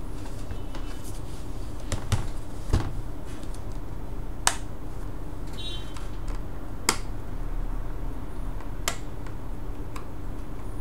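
Sharp clicks and taps from handling a laptop's plastic case and small tools during disassembly, about seven at irregular intervals, the loudest a little under 3 seconds in, over a steady low hum.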